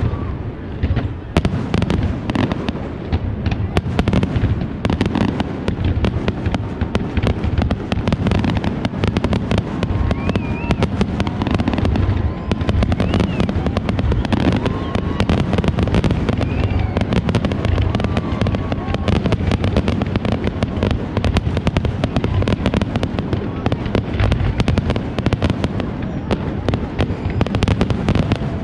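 Fireworks display: aerial shells bursting in a rapid, continuous barrage of booms and crackles, with no let-up.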